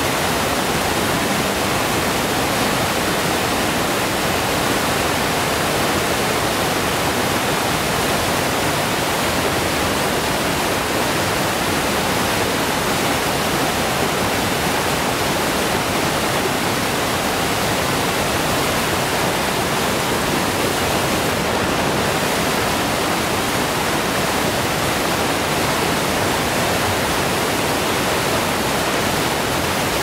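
Small waterfall: a mountain stream cascading over granite boulders, a steady, unbroken rush of water.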